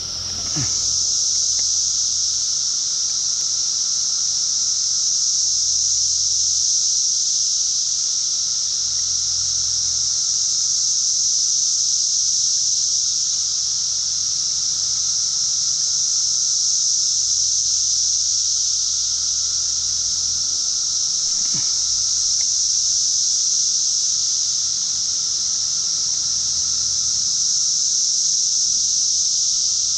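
A loud, steady, high-pitched drone of cicadas in the summer trees, unbroken throughout.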